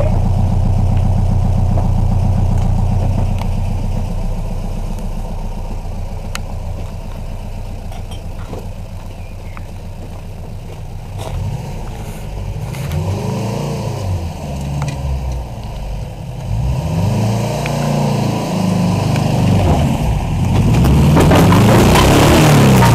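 Small homemade roadster's engine idling steadily, then revved up and let fall three times as the car pulls away, getting louder near the end.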